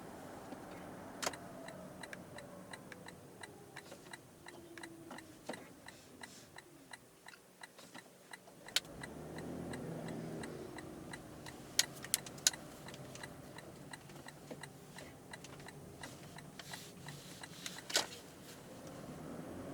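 Lexus RX450h hybrid interior noise on the move: a fast, regular ticking, with a few sharper clicks. A whine falls in pitch over the first several seconds, then low road and drive rumble swells about halfway through.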